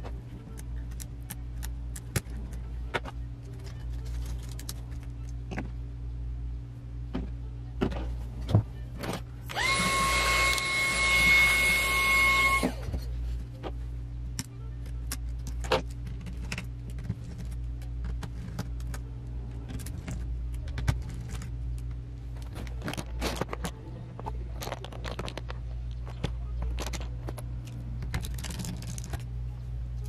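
Light clicks and taps of hands handling the parts of an opened laptop (ribbon cables, screws, plastic and metal) over a steady low hum. Near the middle a small motor whirs steadily for about three seconds.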